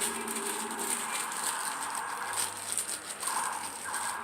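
Light, irregular clicking and rattling of small clothes-dryer parts being handled and worked loose by hand.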